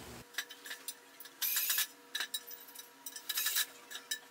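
Light metallic clicks and short scraping rubs of metal stand hardware being worked by hand, with the longest scrapes about one and a half and three and a half seconds in.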